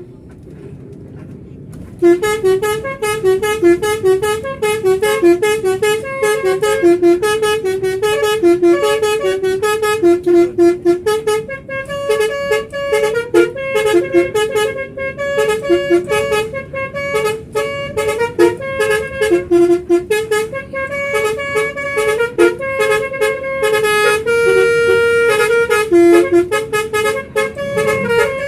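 Telolet-style vehicle horn driven by a 'pianika' melody module, playing a quick tune of short stepping notes that starts about two seconds in, with a longer held note near the end.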